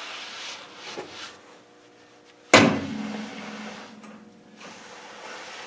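A cloth rubbing over a brake disc, then one sharp metallic knock about two and a half seconds in that rings on for about a second and a half before dying away.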